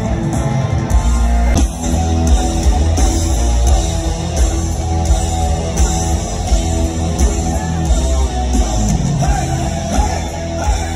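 Epic doom metal band playing live through a concert PA, heard from within the crowd: distorted electric guitars, heavy bass and drums, with a singer's voice.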